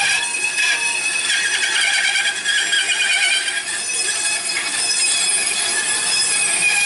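Benchtop Performax bandsaw cutting a curved profile in a wild black cherry board: a steady, loud whine of several high tones that waver slightly as the blade works through the wood.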